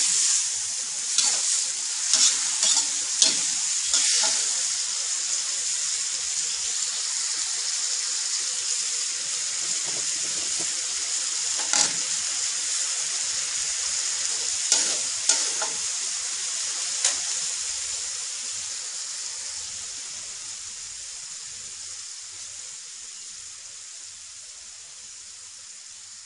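Water spinach and canned fish sizzling in a wok, a steady high hiss. A metal spatula scrapes and taps the pan several times in the first few seconds and a few times again around the middle. The sizzle slowly fades toward the end.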